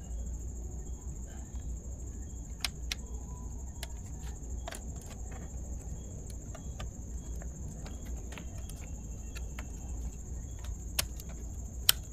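Light clicks and taps of a Volkswagen Amarok instrument cluster's plastic parts being handled and pressed together, with two sharper snaps near the end as a piece seats back in place.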